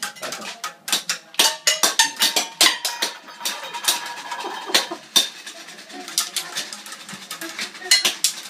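Improvised percussion on household objects and toys: fast, irregular clattering knocks on a glass jar and plastic toys, with a faint held note through the middle.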